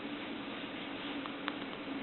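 A newborn baby's hiccup: a single short, sharp click about one and a half seconds in, over a steady hiss and a low hum. Frequent hiccups like this are normal in a newborn, whose diaphragm is not yet mature.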